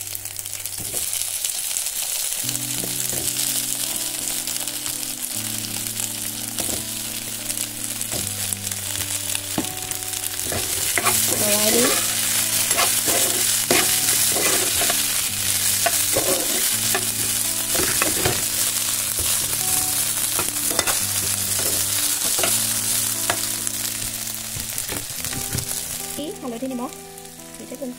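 Cubed potatoes with sliced onion and ginger sizzling in hot oil in a frying pan, stirred and scraped now and then with a metal spatula. The sizzle eases off near the end.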